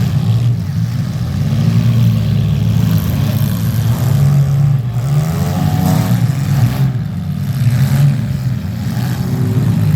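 Demolition derby cars' engines running and revving in the arena, a loud steady drone with the pitch rising and falling around the middle.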